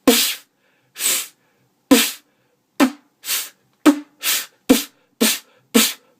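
Beatboxed vocal snare, made by pushing air past the lower lip against the upper teeth. About ten strokes come at roughly two a second, some opening with a sharp lip attack and others softer and hissing, like the rattle of a snare's snappy wires.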